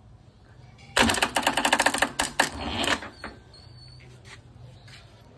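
Electric starter (self-starter) of an old stationary diesel engine being energised from the battery cables: a loud, rapid clicking chatter for about two seconds, followed by a low steady hum.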